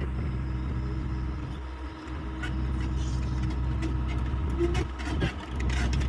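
Hyundai 85A excavator's diesel engine running steadily while it works, with a few short clicks and knocks over the engine and brief dips in its sound.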